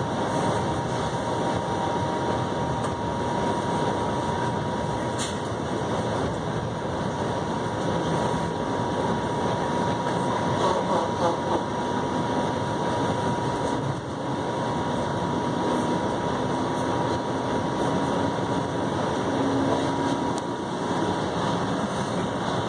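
TTC Flexity Outlook low-floor streetcar running along its route, heard from inside the passenger cabin. It makes a steady rumble of rolling and running noise with a constant thin high hum. A faint low whine comes and goes in the last several seconds.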